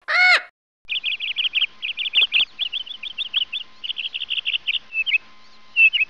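Small birds chirping: quick runs of short, high chirps, several a second, with brief pauses between the runs. A single short pitched note sounds just before the chirping begins.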